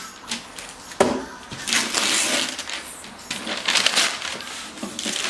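Christmas wrapping paper being torn and crumpled by hand off a gift box: bursts of tearing and rustling, with a sharp snap about a second in.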